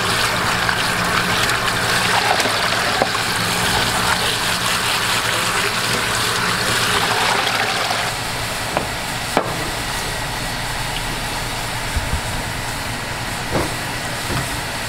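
Water running and splashing as fresh kalguksu noodles are rinsed by hand in a plastic basin. About eight seconds in the splashing stops, leaving a steadier hiss of seafood broth at a rolling boil, with a few sharp clicks.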